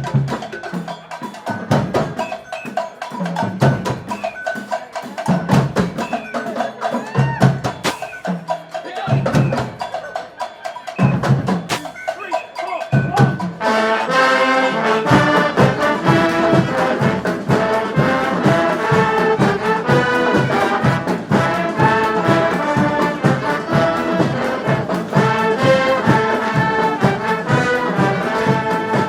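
Brass street band playing: drums and scattered horn lines at first, then the full horn section of trumpets and trombones comes in about halfway through over a steady drumbeat.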